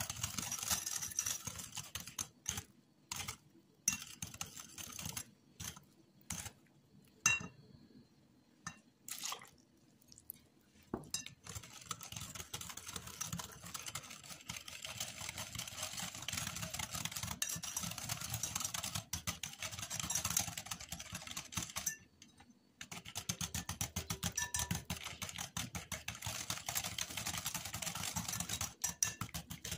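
Small wire whisk beating a thin liquid batter in a white bowl, its tines clicking and rattling fast against the bowl's sides. For the first ten seconds or so it comes as scattered taps with pauses, then runs steadily, stopping briefly about two-thirds of the way through.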